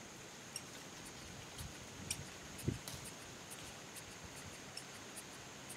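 Faint, irregular clicks and squeaks from a hand-squeezed vacuum brake-bleeder pump being worked on the front caliper's bleeder valve, with a few soft knocks.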